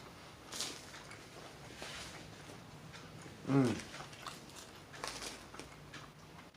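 A person biting into and chewing a burger, with soft, wet mouth clicks. A brief hum of a voice, falling in pitch, comes about three and a half seconds in.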